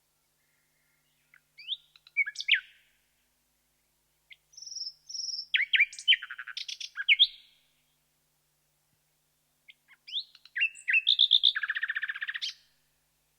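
Common nightingale singing: three separate song phrases of clear whistles, sharp sweeping notes and rapid trills, separated by silent pauses of a second or two.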